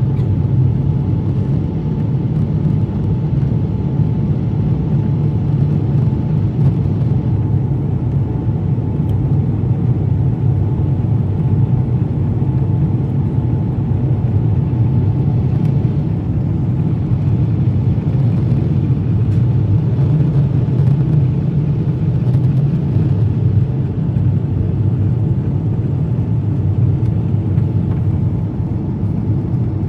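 Steady low roar of an airliner cabin in flight: jet engines and rushing air heard through the fuselage, with a faint steady hum above it.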